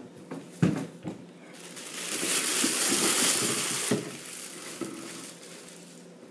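Clear plastic bag crinkling and rustling as a football helmet is pulled out of it, loudest for a couple of seconds in the middle. A few light knocks come before it.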